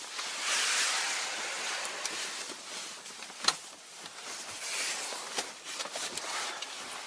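Rustling and bumping of someone climbing into a car's driver's seat, with clothing and handling noise and a sharp click about halfway through.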